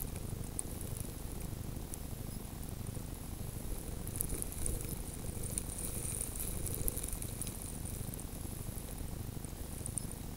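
Wind rumbling over the microphone of a camera lying in the snow, with faint, irregular high crackling and ticking. No engine can be picked out.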